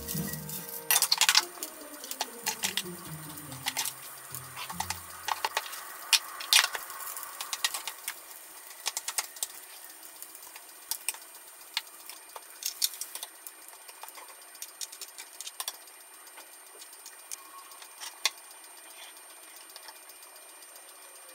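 Irregular clicks, taps and scrapes of a white rice paddle and chopsticks against a stainless steel bowl as mixed rice is stirred and scooped, busier in the first half and sparser toward the end.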